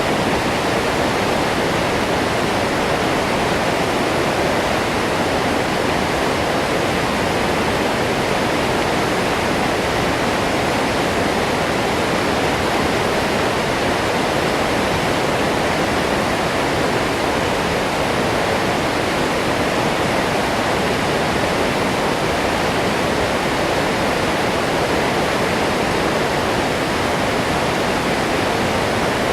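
Waterfall: water falling and crashing into its pool, a loud, steady, unbroken rush.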